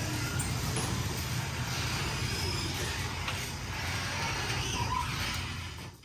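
Steady vehicle running noise, a low engine hum under a wide rush of road or wind noise, which cuts off abruptly at the end.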